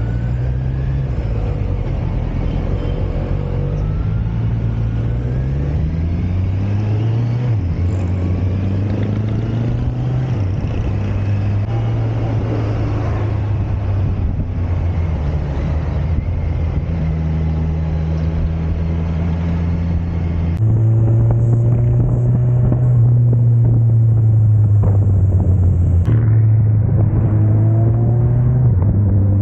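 Kawasaki Versys 1000 SE's inline-four engine running through an Akrapovic titanium slip-on exhaust with its silencer insert removed, under way. The engine note repeatedly climbs in pitch and drops back as it revs up through the gears, and it gets louder about two-thirds of the way through.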